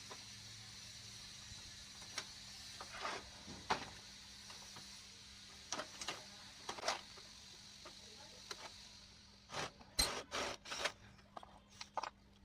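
Scattered clicks and knocks from printer parts being handled during disassembly, with a quick run of sharper, louder clicks about ten seconds in. A faint hum and hiss sit underneath, the hiss fading out shortly before the loud clicks.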